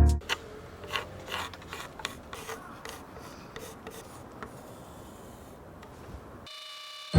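Hand-tool work: quiet scraping and rubbing with irregular sharp clicks, thinning out and stopping about six and a half seconds in.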